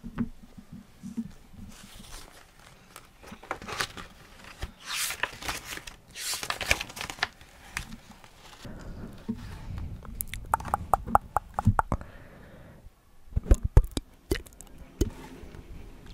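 Large illustrated book with glossy pages handled close to the microphone: the book being opened and its big pages turned, with several paper swishes and rustles. A little after the middle comes a quick run of light ticks, then a few sharper clicks.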